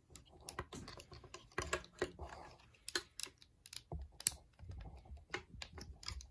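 Irregular sharp plastic clicks and snaps from a Transformers Kingdom Rhinox action figure as its parts are folded and its joints are worked by hand during transformation.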